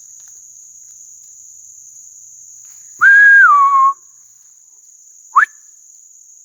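A person's loud whistled call, a high note held then dropping to a lower one for about a second, followed about two seconds later by a short upward-sliding whistle, given as a Bigfoot call. Crickets trill steadily behind it.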